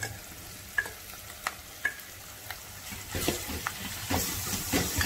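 Minced meat going into a pot of sautéed onions on the fry, with a few light clicks of the spatula against the metal bowl and pot. From about three seconds in come louder stirring and scraping and a stronger sizzle as the raw meat hits the hot pan.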